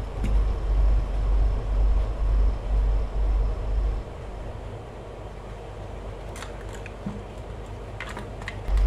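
A low, fluctuating rumble on the microphone for about four seconds, then a few sharp plastic clicks as a cable connector is handled and pulled off a Honda keyless smart-key module.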